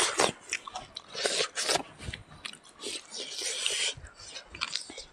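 Close-miked mukbang eating: people chewing and biting smoked pork and rice, with many short wet mouth clicks and a longer hissy stretch about three and a half seconds in.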